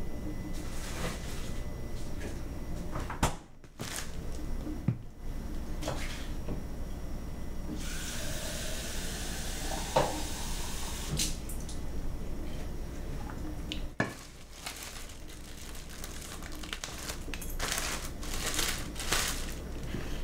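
Kitchen tap running into a sink for about six seconds in the middle, a steady hiss of water. Before and after it come scattered knocks and clatter of things being handled in the kitchen.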